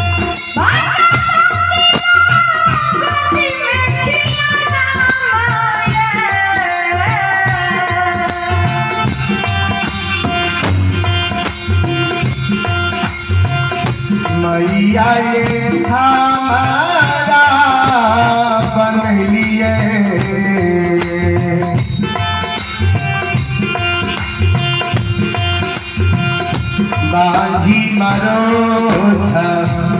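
Devotional folk music (Bhagait) led by a Roland keyboard: melody phrases that slide downward, twice, over a steady percussion beat.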